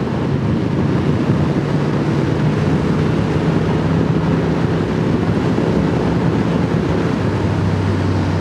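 Stock Triumph Speed Twin's parallel-twin engine running at a steady cruise, with wind rushing over the microphone. About seven seconds in the engine note drops to a lower pitch.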